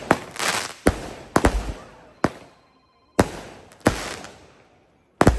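Consumer fireworks going off: a string of sharp bangs, irregularly spaced and each with a fading echoing tail, broken by two short pauses. A loud bang comes near the end.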